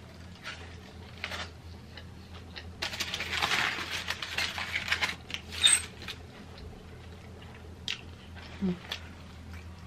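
Aluminium foil wrapper crinkling and rustling around a burger as it is handled and set down, a dense crackle from about three seconds in lasting some three seconds, with close-up chewing and mouth clicks around it.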